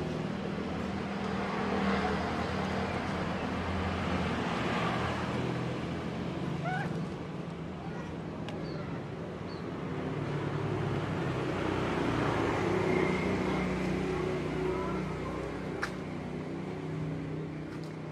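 Steady low rumble of a running motor vehicle engine, its pitch wavering a little. A few faint short chirps come between about seven and ten seconds in, and a single sharp click near the end.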